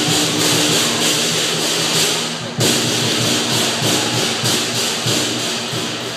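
Lion dance percussion playing: a drum beating under continuous clashing cymbals, which break off for a moment and strike up again about two and a half seconds in.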